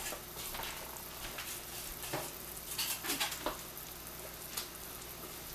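Smoked pig tails boiling hard in a large stainless steel pot of water: a steady bubbling hiss with irregular small pops.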